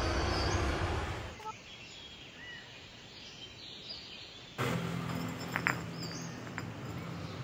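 Outdoor background noise that drops off about a second in to a quieter stretch. About four and a half seconds in, a glass bottle spinning on stone paving tiles starts suddenly, a steady scraping noise.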